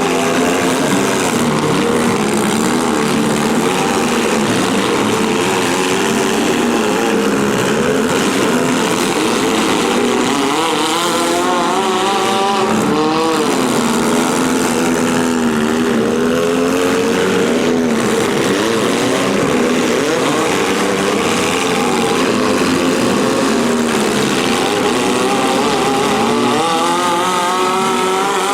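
Several compact-car engines revving up and easing off, overlapping in a loud, continuous mix as demolition derby cars run and manoeuvre.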